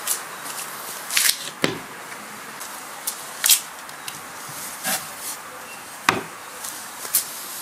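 Knocks and clicks of a folding wooden box-table being opened out and braced: plywood and pine panels on metal hinges and a metal brace rod knocking into place, about eight irregular sharp knocks with two duller thumps, one a little under two seconds in and one about six seconds in.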